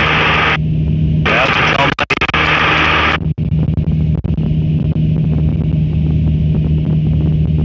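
Cessna 152's Lycoming O-235 four-cylinder engine and propeller droning steadily in cruise. For about the first three seconds a loud hiss of radio static lies over the drone, breaking off briefly just after the start and then stopping abruptly.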